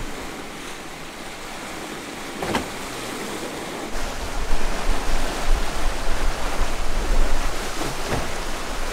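Sea water rushing past a Corsair 880 trimaran's hulls under sail at speed, a steady hiss that turns louder and gustier with wind buffeting on the microphone about four seconds in.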